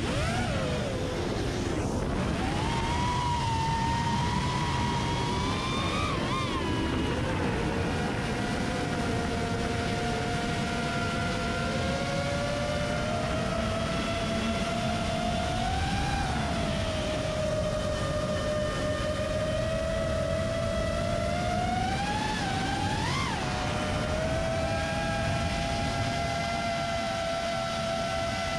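FPV quadcopter's brushless motors and propellers whining, the pitch rising and falling with throttle, with a few brief sharp climbs in pitch, about a third, halfway and three quarters of the way through. Under it runs a steady low rush of air noise.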